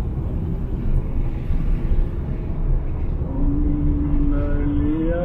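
A steady low rumble. About three seconds in, a slow melody with long held, wavering notes begins over it.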